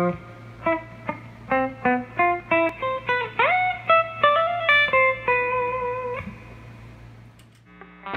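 Electric guitar played clean through a Fender Deluxe amp with the gain pedal switched off: a quick run of single picked notes, a string bend about three seconds in, and a last note held with vibrato that fades out about six seconds in, over a steady amp hum.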